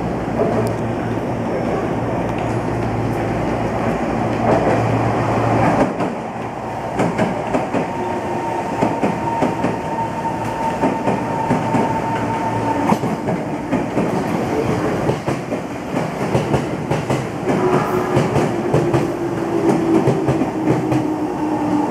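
E231-series electric commuter train running into the station, wheels clattering over rail joints and points. A low steady hum gives way about six seconds in to dense rhythmic clicking, with a faint thin whine in places.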